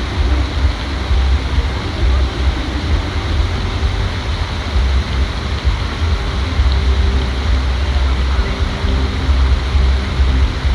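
Steady outdoor ambience: an even rushing noise over a strong, fluctuating low rumble, with people's voices faint in the background.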